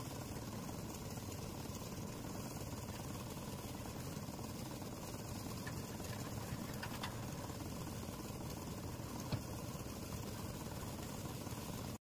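A site concrete mixer running steadily, its engine and turning drum giving a continuous mechanical noise.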